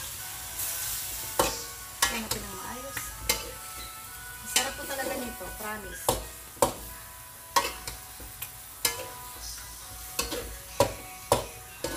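Metal spatula stirring and tossing chunks of boiled beef and tripe in a steel wok over a gas flame: a light frying sizzle with sharp clacks of the spatula against the wok, about one a second and unevenly spaced.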